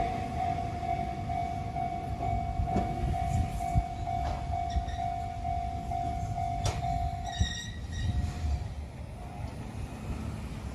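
Japanese level-crossing alarm ringing its steady repeated electronic ding while an Enoden electric train rumbles over the crossing, with a few sharp clacks from the wheels. The alarm stops about seven seconds in, and a brief high-pitched tone follows.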